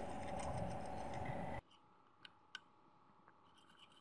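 Faint snips of kitchen scissors cutting through a thawed sheet of puff pastry, a few soft clicks spread over the last two seconds. A steady background hum cuts off suddenly about one and a half seconds in.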